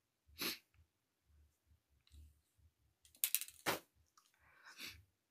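Sniffing and breathing from a tearful woman close to a phone microphone. About three seconds in there is a short burst of clicks and rustling as her hand moves near the phone.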